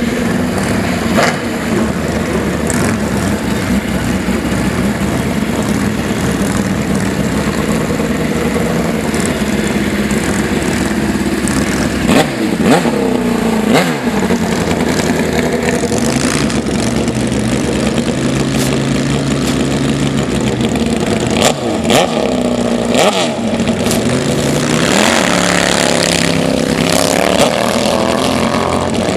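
Drag-racing motorcycle engine running loudly, with several quick throttle blips that make the pitch jump up and fall back, and a higher-revving stretch near the end.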